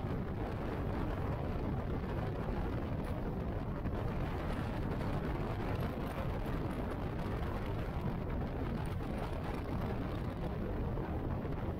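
Motorcycle cruising steadily at road speed: engine running evenly under a constant rush of wind and road noise.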